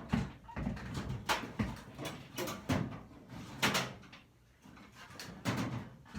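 Rummaging through a toolbox: irregular knocks and clatters of metal tools and drawers being moved, with a brief lull past the middle.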